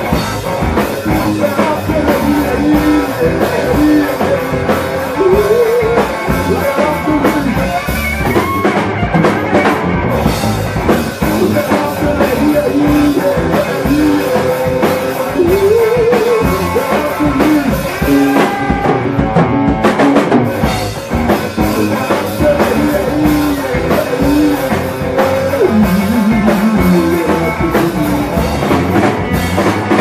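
Live rock band playing: electric guitar and drum kit, loud throughout, with a wavering guitar or vocal melody line over the rhythm.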